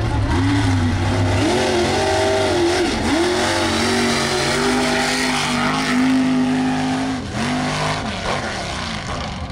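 Mega mud truck engine racing at high revs, its pitch climbing and falling several times, with sharp dips about three seconds in and again near seven seconds.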